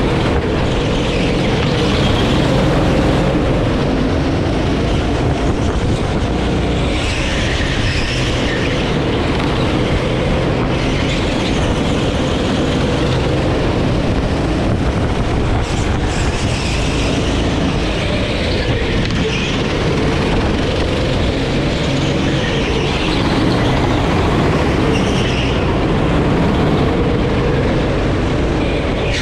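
A Sodi rental kart's engine running hard while lapping, heard from on board the kart: steady and loud, with brighter, higher-pitched stretches every few seconds.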